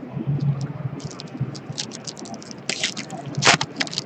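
Crinkling and clicking of hockey card packs, wrappers and cards being handled and opened. A quick run of crackly ticks and short rustles starts about a second in and thickens, with the loudest rustle at about three and a half seconds.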